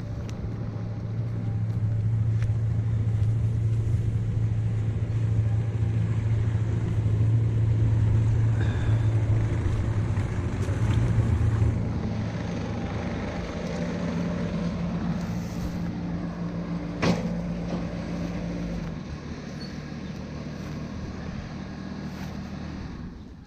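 An engine running steadily. Its pitch steps up about halfway through, and there is a single sharp click later on.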